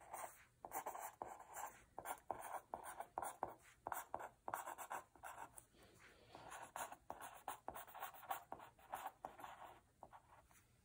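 Pen writing on a sheet of paper: faint, uneven scratchy strokes of the tip across the page as words are written out, tailing off near the end.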